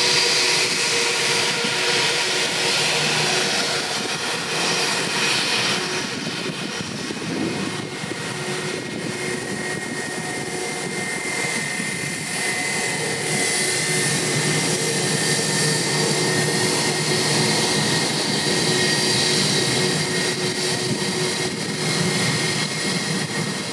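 Airbus A320's twin jet engines running at taxi power as the airliner taxis and turns to line up on the runway: a steady jet whine and rush with several held tones, and a higher whine that comes in about halfway through.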